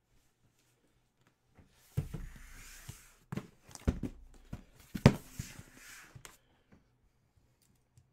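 Handling noises: a string of knocks and thumps with rustling between them, from about two seconds in until a little past six seconds. The loudest knock comes about five seconds in.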